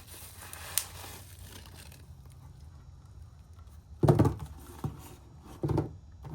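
A flashlight's box and packaging being handled and opened: light rustling with a sharp click just under a second in, then two heavier bumps about four and five and a half seconds in.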